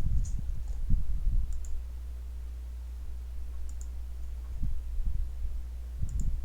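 A few sharp, spaced-out computer mouse clicks over a steady low hum, with soft low thumps in short clusters.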